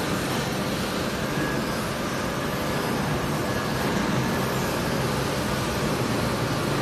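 Steady drone of running factory machinery: a low hum with an even rushing noise over it.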